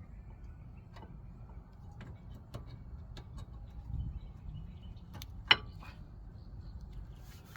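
Brake pads being slid and seated into a rear disc-brake caliper bracket: scattered light metal clicks and taps, with one sharp louder click about five and a half seconds in, over a low steady rumble.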